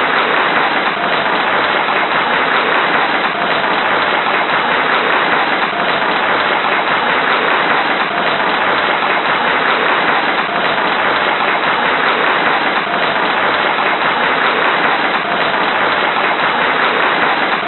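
Dense, steady applause from a large crowd, many hands clapping at once with no pauses.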